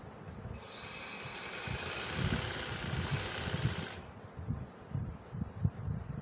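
Sewing machine stitching a pleat into cotton trouser fabric: a loud whirring run from about half a second in until about four seconds, then slower, softer thumps of the needle.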